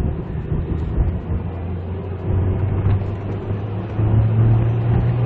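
Mercedes-Benz SLK's engine and road noise heard from inside the cabin as the car accelerates under steady throttle toward about 100 km/h. The engine note rises and grows louder about four seconds in.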